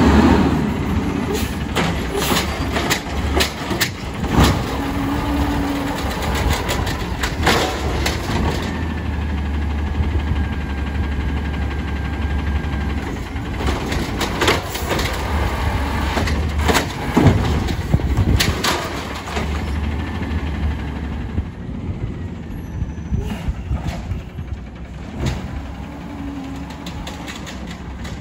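Automated side-loader garbage truck running while its hydraulic arm lifts and tips wheeled carts into the hopper. The engine drones under repeated clunks and bangs as each cart is shaken out, and the sound is fainter near the end.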